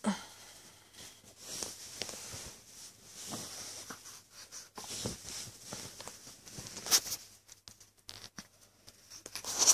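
Soft rustling and scratching with scattered sharp clicks, one louder click about seven seconds in and another near the end.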